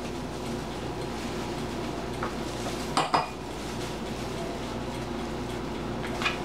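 Metal spoon scraping butter out of a tub, with a sharp clink of the spoon about three seconds in, over a steady low hum.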